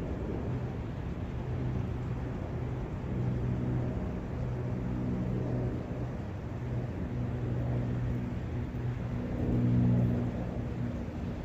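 Steady low outdoor rumble with an underlying hum, rising and falling in slow swells and loudest near the end.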